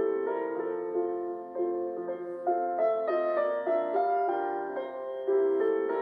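Background piano music, slow and gentle, with notes struck about every half second.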